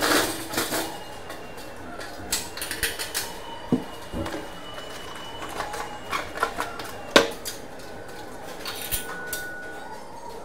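Irregular knocks, clanks and clicks of a person climbing an aluminium folding ladder and handling a plastic LED ceiling light, with a clatter at the start and the loudest sharp knock about seven seconds in.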